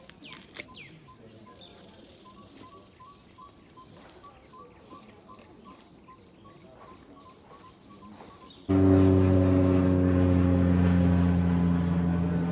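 Forest birds chirping, one repeating a short clear note two or three times a second. Near the end, a loud steady low hum with many overtones cuts in suddenly and holds.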